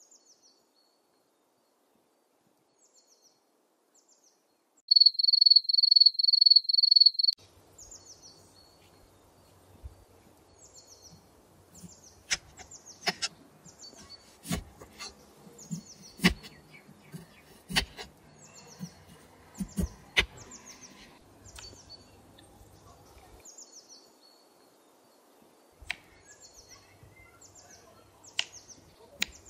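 Small knife cutting through a red onion onto a wooden chopping board: a series of sharp cuts and taps, thickest in the middle. Small birds chirp throughout, and about five seconds in a loud, rapid, high-pitched chirping call lasts about two seconds.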